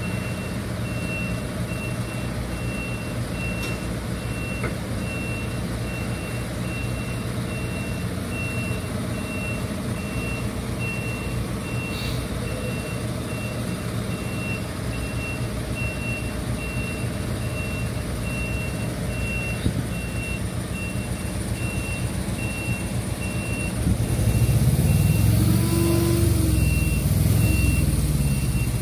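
A heavy truck's reversing alarm gives a steady high beep, repeating evenly, over the truck's engine running. About 24 seconds in, the engine revs up louder with a rise in pitch, then eases back near the end.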